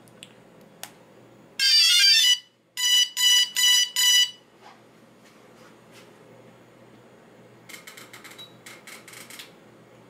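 DJI Phantom 2 powering up: a quick rising run of electronic tones, then four short beeps at one pitch. A fainter spell of rapid ticking follows near the end.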